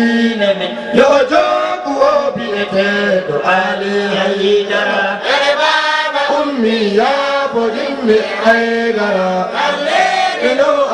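Young men chanting a devotional recitation into a handheld microphone, a continuous melodic line that rises and falls without pause.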